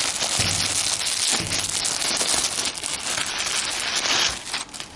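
Plastic packaging crinkling and rustling as it is handled and opened, stopping near the end.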